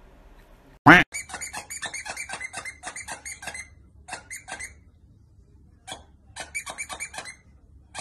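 A plush dog toy's squeaker squeaking quickly over and over as a border collie chews it, in bursts of about six squeaks a second with short pauses. About a second in there is one short, loud screech.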